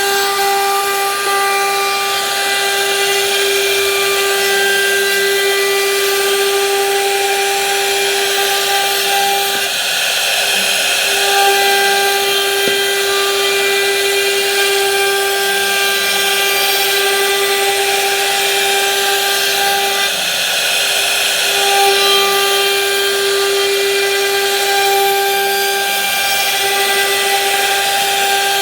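Electric power tool running steadily on wood: a constant high whine over a rushing hiss, which drops out briefly three times.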